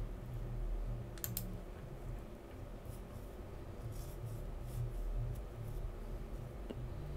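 A few short, faint clicks from a computer mouse as the code is scrolled, over a low steady hum.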